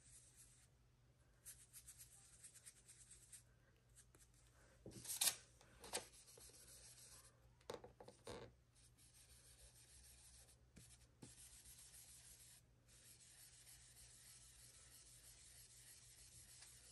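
Faint rubbing of an oval blending brush loaded from an ink pad and dabbed onto paper, in soft scratchy strokes. The clearest strokes come about five to six seconds in and again about eight seconds in.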